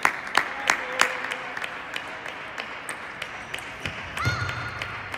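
Table tennis ball being struck back and forth in a rally, sharp clicks about three a second that stop about a second in, with fainter ball clicks from other tables behind. Near the end comes a short high-pitched sound lasting under a second.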